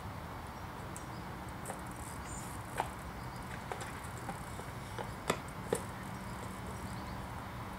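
Quiet outdoor ambience: a steady low hum with a few short, faint clicks.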